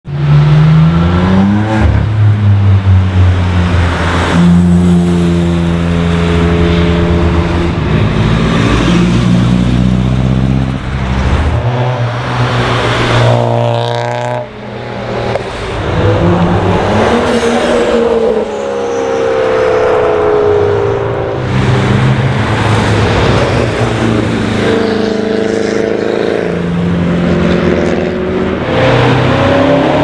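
Several performance cars, BMWs among them, accelerating past one after another, their engine notes rising and falling as they rev and shift gears.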